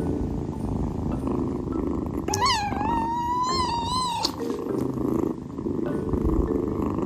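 Domestic cat purring steadily close up, with one long meow of about two seconds a little over two seconds in.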